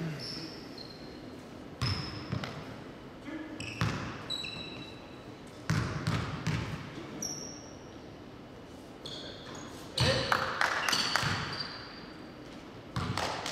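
Basketball game play: a basketball bouncing at irregular intervals, with short high squeaks and players' voices. There is a louder, busier flurry about ten seconds in.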